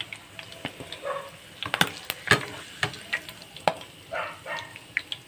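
Pork chops frying in hot oil in a pan: a steady sizzle broken by many sharp pops and spatters. A metal utensil scrapes and turns the meat a few times.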